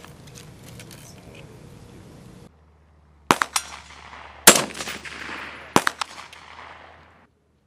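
Several shots from G28 (HK417) 7.62 mm semi-automatic marksman rifles, spread over about three seconds in the second half, each followed by a rolling echo; the loudest comes about halfway through.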